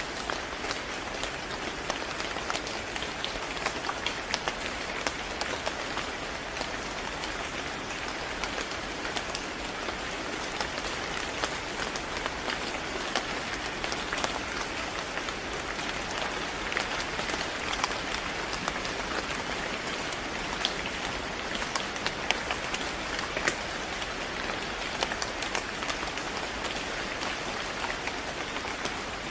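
Steady rain falling on a surface, an even hiss dotted with many small sharp drop hits.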